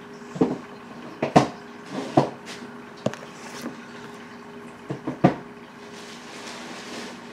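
A person rummaging through bags of purchases: a string of short knocks and rustles, about eight of them, over a faint steady hum.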